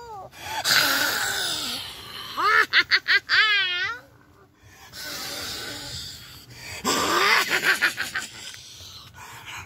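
Shrill cackling laughter in a witch's voice, its pitch wobbling up and down, loudest a few seconds in. A burst of rapid laughing comes near the end.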